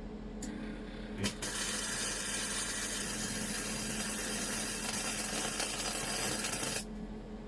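Flux-core (gasless) MIG welding arc striking with a sharp crack about a second in, then crackling and hissing steadily for about five seconds as a bead is run with the wire feed turned down to 3, and cutting off suddenly near the end. A steady electrical hum from the small 130-amp welder runs underneath.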